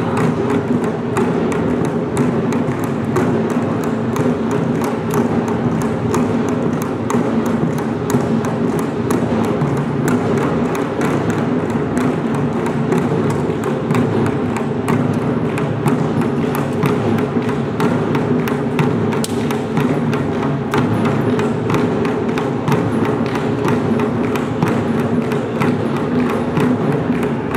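A traditional Korean folk percussion band (pungmul) playing, with rapid, dense strikes that continue without a break over a steady, full sound.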